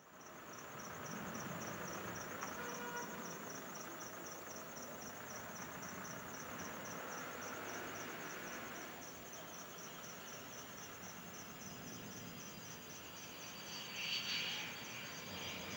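Crickets chirping in a fast, steady, pulsing trill, over faint background noise. Near the end the high whine of a Beechjet 400A's jet engines grows louder as the jet rolls along the runway.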